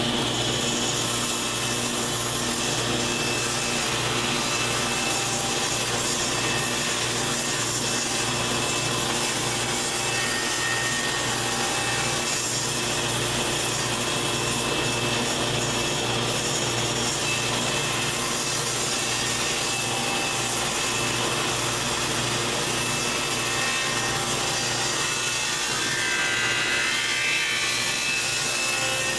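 Table saw running and cutting a board fed on edge along the fence, a light skim pass to smooth out blade gouges left by the previous cut. The steady cutting noise holds throughout, with a wavering higher whine near the end.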